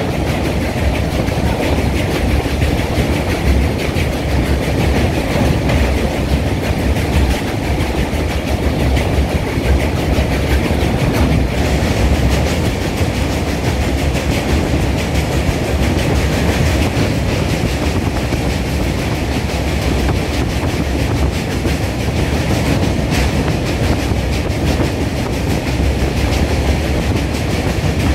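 A passenger train running across a riveted steel truss bridge, heard from inside the carriage at the window: a steady rumble of wheels on the rails.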